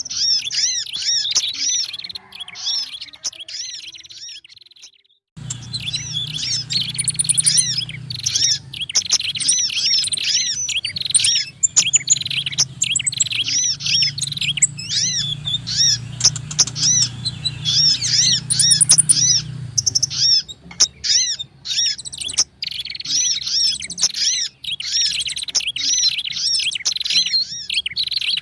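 Bird-lure recording of small songbirds calling noisily: prinias (prenjak) chattering mixed with sogon and sunbird (kolibri) calls, a dense run of fast, repeated high chirps. The calls break off briefly about four seconds in, then resume over a low steady hum that fades out around twenty seconds in.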